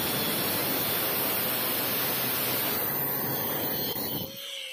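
Angle grinder with a thin cut-off disc cutting through a stainless steel pipe: a loud, steady grinding hiss. About four seconds in the cutting noise stops, leaving the grinder's much fainter whine.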